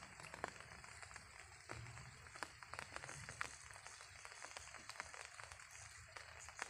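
Faint light rain: scattered raindrops ticking irregularly over a soft steady hiss.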